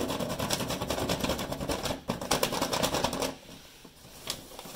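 Side of a colored pencil rubbed quickly back and forth over paper laid on a metal floor vent: a rapid, scratchy rasp that stops about three seconds in, followed by a single light tap.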